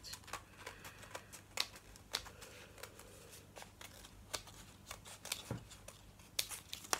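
Small craft scissors snipping through folded pink paper: a run of faint, irregular short snips, a few of them sharper than the rest.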